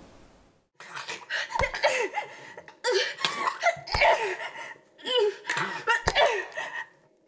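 A person laughing in a run of bursts, with three short sharp clicks among them.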